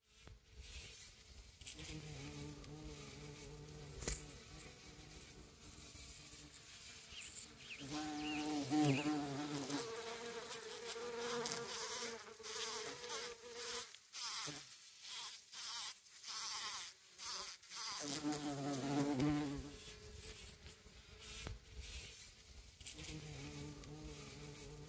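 Bumble bee and honey bee buzzing in flight, a wing hum that comes and goes in stretches of a few seconds. Partway through, a higher buzz that wavers in pitch joins the lower hum, then both drop out for a few seconds under a high hiss before the hum returns.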